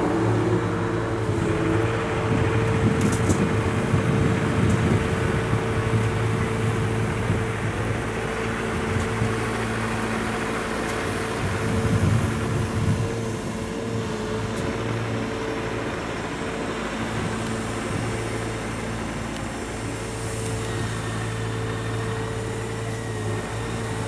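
Road traffic passing on a busy street, over a steady engine drone from construction machinery running at the trackside worksite.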